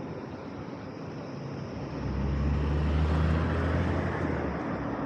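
Steady city traffic noise, with a motor vehicle passing close by: its low engine note swells up about two seconds in, peaks, and fades away just before the end.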